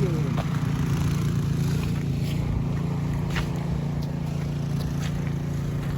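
A small engine running steadily with a low, even hum, with a few faint clicks over it.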